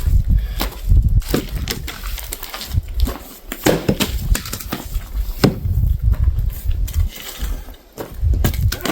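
Firewood being split and handled by hand: scattered sharp knocks and cracks of wood, over a gusty low rumble.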